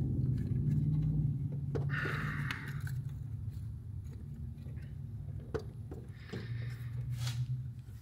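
Faint metal scrapes and a few small clicks as a pulley remover tool is fitted around a power steering pump pulley and snugged up by hand, over a steady low hum.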